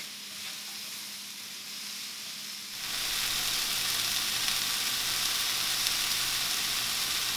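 Diced sweet potatoes, onions and Granny Smith apples frying in a skillet, sizzling steadily; the sizzle becomes louder about three seconds in.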